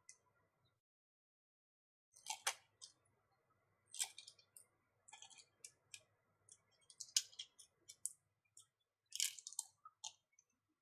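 Small irregular clicks and light scrapes of a tool and fingers working tiny parts loose inside a smartwatch being taken apart. The sounds start about two seconds in, with the sharpest clicks at roughly four points.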